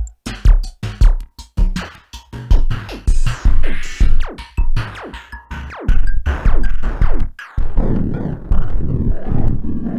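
Electronic synth music from an M-Audio Venom synthesizer: irregular drum-machine hits and synth tones with several falling pitch sweeps. A dense, continuous low layer takes over about three quarters of the way in.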